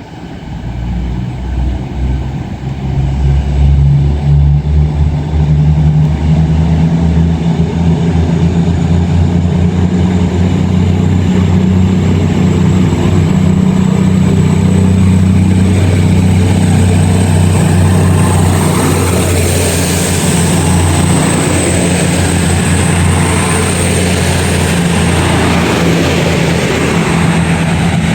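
Class 222 Meridian diesel-electric multiple unit pulling away under power, its underfloor diesel engines building to a steady deep drone over the first few seconds. A faint high whine rises through the middle.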